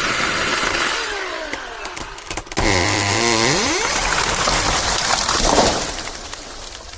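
Ridgid 18-volt brushless cordless chainsaw running. About two and a half seconds in, its motor sound starts sharply, dips in pitch, then climbs again. The sound fades near the end.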